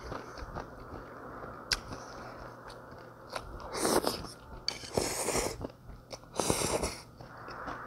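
A person slurping rice noodles in broth, three loud slurps about four, five and six and a half seconds in, with quieter chewing and small clicks before them.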